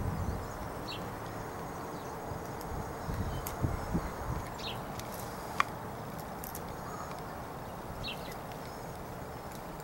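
A crow pecking at food in a birdbath: a few soft low knocks and one sharp tap of the beak about halfway through, over steady outdoor background noise.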